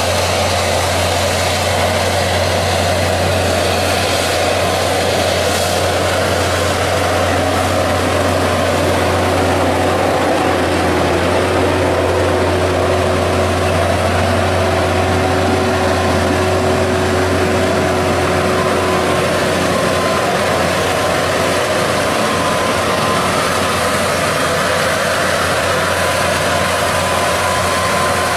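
Large farm tractor's diesel engine running steadily under load as it pulls a seed drill, a constant low drone.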